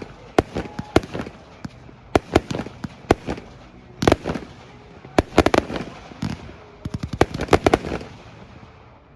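Consumer fireworks going off: irregular sharp bangs, with quick clusters of reports about four seconds in and again about seven seconds in, then dying down near the end.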